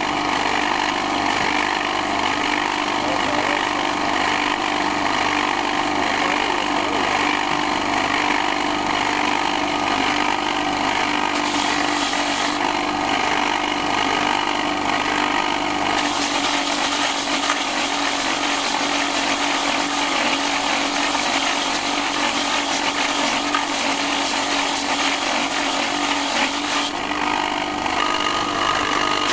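An electric grinding wheel for shaping young coconuts runs with a steady hum. A harsher grinding hiss comes in during stretches, louder from about halfway until shortly before the end, as a coconut is pressed against the wheel.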